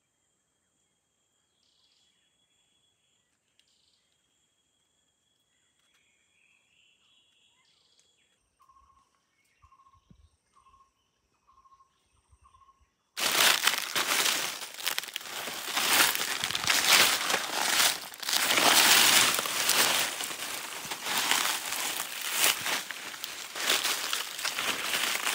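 Quiet forest ambience with steady high insect drones and five short, evenly spaced quiet calls, then, about halfway through, loud irregular crunching and crinkling of dry leaf litter, as of footsteps walking through fallen leaves.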